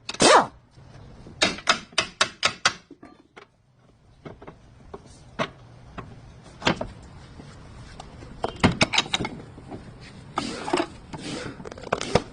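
Irregular sharp knocks and clicks: a quick run of about five a second or two in, then scattered single knocks and another cluster later on.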